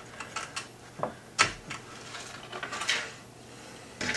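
PC fan cables and connector being handled and pushed into place by hand: a series of small plastic clicks and knocks, the sharpest about a second and a half in, with a soft rustle of wire.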